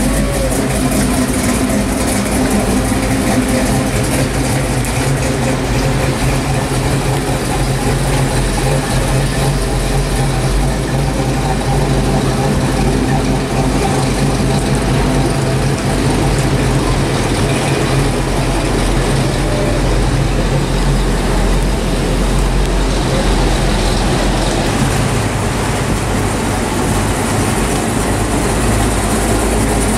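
Classic muscle car engines running as the cars cruise slowly past one after another, a steady low engine rumble.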